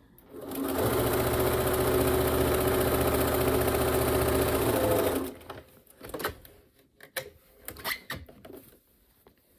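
Bernina electric sewing machine stitching a folded hem through three layers of cotton fabric. It runs steadily at speed for about four and a half seconds, then stops and is followed by a few light clicks and rustles of fabric being handled.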